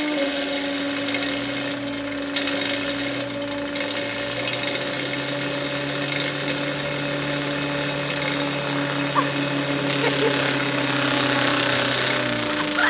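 Angle grinder spinning a disc of attached spoons, running steadily at speed with a whine and a hiss; it spins up at the start and winds down near the end.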